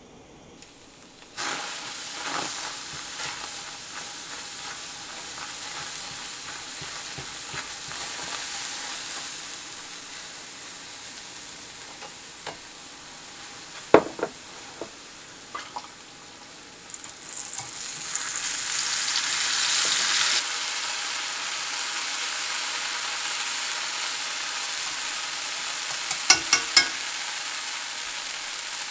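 Food sizzling in hot oil in a pan. The frying starts suddenly about a second and a half in and is stirred with a utensil. A sharp knock comes about halfway through, the sizzle swells louder for a few seconds, and there are a few quick taps of the utensil against the pan near the end.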